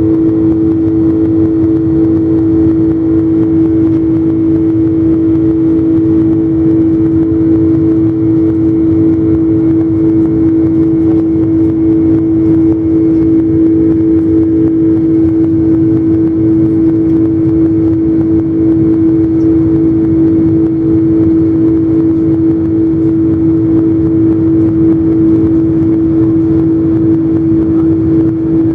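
Boeing 747 jet engines running steadily: a constant rushing drone with a strong steady hum that does not change in pitch or loudness.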